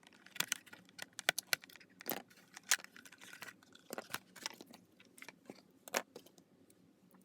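Irregular clicks, crinkles and light clatter as plastic packaging and small metal crafting tools are handled.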